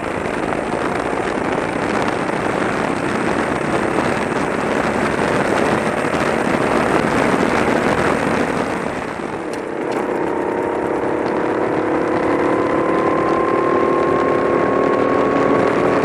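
Onboard sound of a 390 cc four-stroke kart engine running at speed, a dense rough roar with no clear note. About ten seconds in it cuts to a 270 cc kart's engine, whose clear note climbs slowly in pitch as the kart accelerates.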